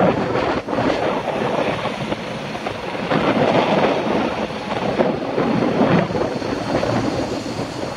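Wind rushing over the microphone of a camera riding on a moving bicycle, mixed with the rumble of city traffic, with a few short knocks.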